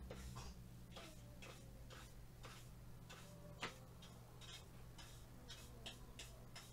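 Faint brushing strokes, about two a second, as a brush sweeps milled plywood dust off the CNC workpiece, one stroke a little louder past halfway.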